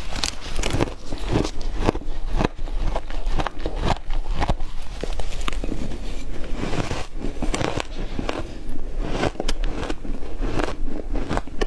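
Close-miked crunching of ice being bitten and chewed: a quick, irregular run of sharp cracks and crunches with no pauses.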